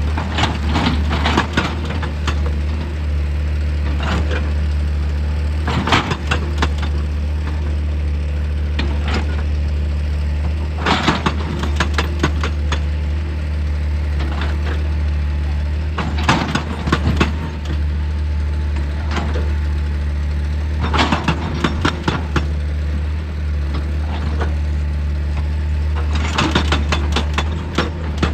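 Heavy machinery's diesel engine running steadily, with clusters of sharp knocks and clattering of rock about every five seconds.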